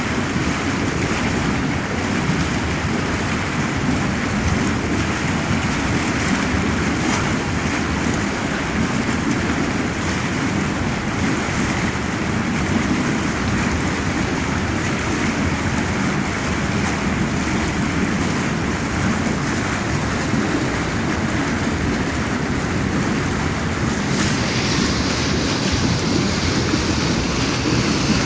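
Hot tub jets churning the water in a steady rushing noise, with a higher hiss joining a few seconds before the end.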